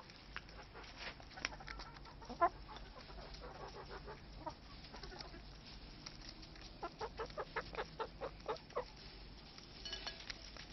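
Laying hens clucking and pecking at a piece of toast held in the fingers, with scattered sharp pecks and a quick run of about ten short sharp sounds a little past halfway.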